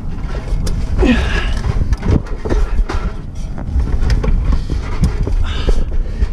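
A man climbing a rope-hung ladder in a tight gap, straining and breathing hard, with his body and clothes scraping and rubbing against the wall and rungs over a steady low rumble of rubbing noise.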